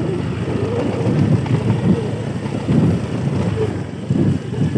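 Vehicle engine running steadily while travelling along a rough road.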